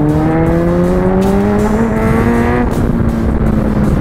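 Kawasaki motorcycle engine heard from the rider's seat, its pitch climbing steadily for about two and a half seconds as the bike accelerates, then holding steady. Wind rumbles over the microphone throughout.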